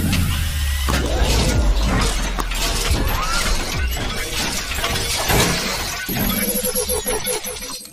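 Intro sound design: music with glass-shattering and impact effects over a deep bass drone.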